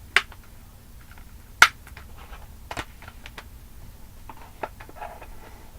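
Plastic DVD case being handled: a handful of sharp clicks and snaps, the loudest about a second and a half in, with lighter taps and rustles between them.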